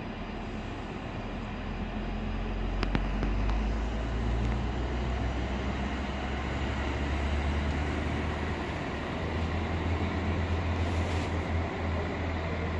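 Diesel multiple-unit train engines running at a station platform: a steady low rumble that grows louder about two seconds in and then holds. A single sharp click sounds about three seconds in.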